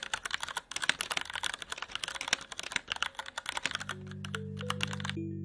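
Rapid typing on a computer keyboard, a dense run of keystroke clicks that stops shortly before the end. About two-thirds of the way through, a low sustained music chord comes in under it with a few stepped notes on top.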